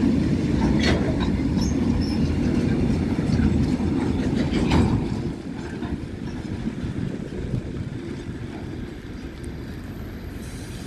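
Freight train of open-top gondola wagons rolling past slowly as it pulls away, its wheels rumbling on the rails with two sharp clacks. About five seconds in the last wagon goes by and the rumble drops off and fades.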